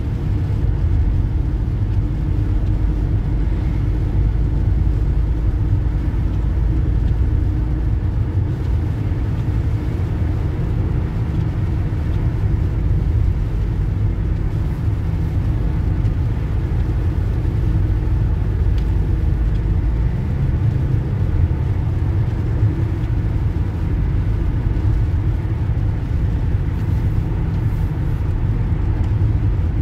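Steady low rumble of a car travelling on a wet highway, heard from inside the cabin: engine and road noise.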